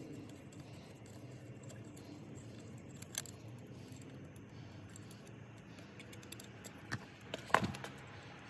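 A hex key and small metal washers being handled on engine-bay bolts: a few sharp metallic clicks, the loudest about seven and a half seconds in, over a low steady background.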